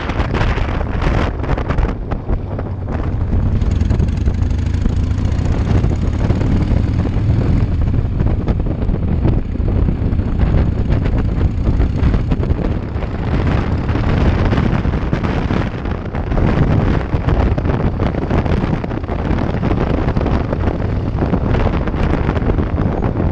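Heavy wind noise on the action camera's microphone while riding a Harley-Davidson motorcycle, with the engine's low rumble running underneath.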